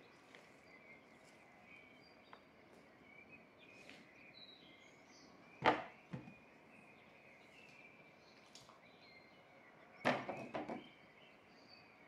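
Faint bird chirps in the background, with one sharp knock about halfway through and a short cluster of knocks near the end as strawberries and a bowl are handled on a plastic tray.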